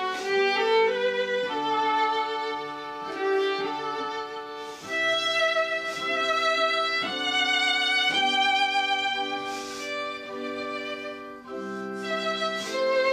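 Instrumental background music: a violin playing a slow melody of long held notes with vibrato.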